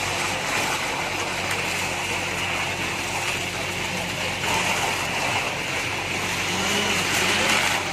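Concrete pump truck's engine running steadily, a constant low drone with machinery noise over it.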